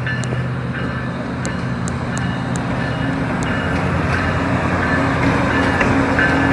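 Diesel switcher locomotive's engine running as it rolls slowly past close by, growing steadily louder. A repeated high ringing tone, like a bell, sounds over it.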